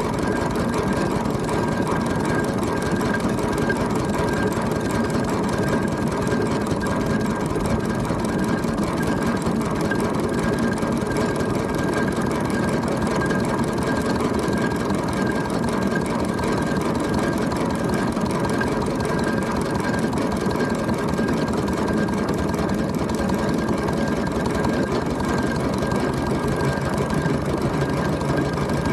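Steam traction engine running steadily, with constant mechanical clatter and a steady high whine. A low hum joins near the end.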